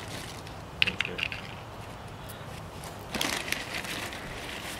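Small plastic toy soldiers being handled and set down on pavement, with their clear plastic bag: a few light clicks about a second in, then a short burst of crinkling and clicking just past three seconds.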